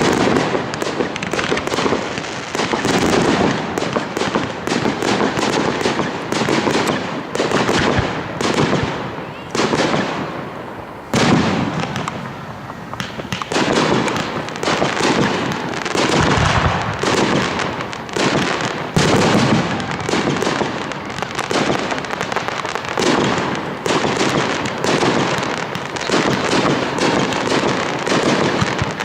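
Fireworks display: a rapid barrage of bangs and crackling bursts, with a brief lull just before a sharp loud bang about ten seconds in.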